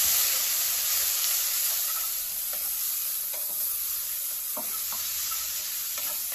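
Grated onion, ginger-garlic paste and freshly added ground spices frying in oil in a pan with a steady sizzle, stirred with a spoon, with a few short scrapes of the spoon against the pan.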